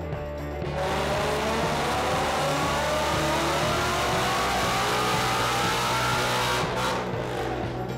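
Supercharged 5.2-litre Ford Predator V8 in a Mustang making a full-throttle pull on a chassis dyno: it comes in hard about a second in and climbs steadily in pitch for about six seconds, then the throttle closes and the revs fall away near the end.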